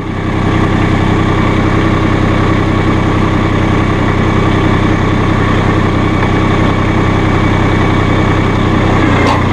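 Massey Ferguson GC1720's small three-cylinder diesel engine running steadily under hydraulic load as both backhoe outriggers are raised together; the sound swells in the first half-second, then holds level. A brief light knock comes near the end.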